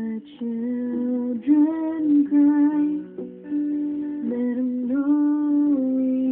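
Electric and acoustic guitar playing a song live together: a sustained melody line with vibrato over steady lower chord notes.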